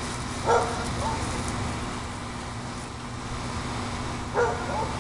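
Golden retriever barking: two short bouts about four seconds apart, each a bark followed by a softer second one.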